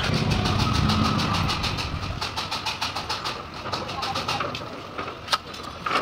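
A motor vehicle engine running with a rapid, even chugging and a low rumble that is strongest in the first second and a half and fades after about four seconds. Two sharp clicks come near the end.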